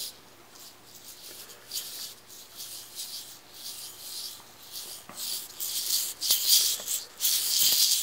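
Beads sliding and rattling inside a hollow 3D-printed fidget spinner as it is spun, a rain-stick-like hiss. It comes in a series of swishes that grow louder in the second half.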